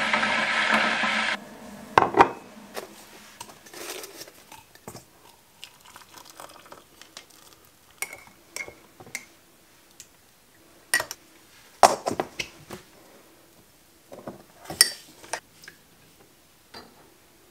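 Electric kettle coming to the boil with a steady rushing noise that cuts off suddenly about a second in as it switches off. Then a scattered run of sharp clinks and knocks from ceramic mugs set down on the worktop and a glass clip-top jar being opened and handled.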